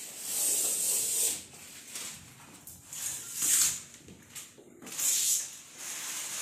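Protective plastic film being peeled off the stainless-steel doors of a new LG double-door refrigerator: three separate hissing rips, each under a second long.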